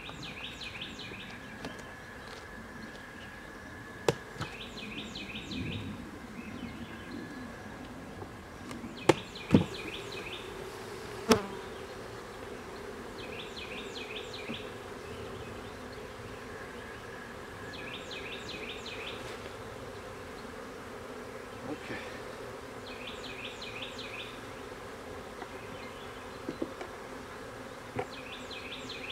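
Honey bees buzzing steadily around an opened nuc box, with a few sharp knocks of wooden frames and hive parts, mostly in the first half. A bird repeats a short chirping phrase every four or five seconds.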